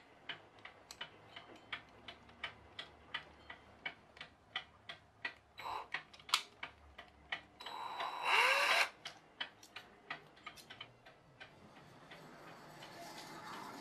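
Steady, regular ticking, about three ticks a second, with a short louder whirr with a rising sweep about eight seconds in.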